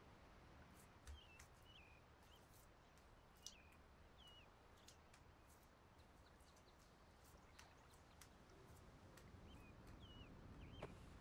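Near silence: faint outdoor ambience with scattered short bird chirps, a cluster in the first few seconds and a few more near the end.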